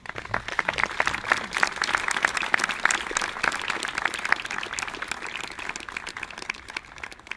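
Audience applauding, starting all at once and slowly dying away near the end.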